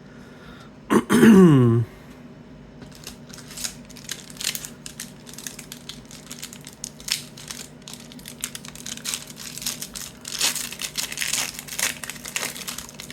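A short, loud throat-clearing noise about a second in, then the crinkling and tearing of a foil trading-card pack wrapper and the rustle and clicks of cards being handled, busiest near the end.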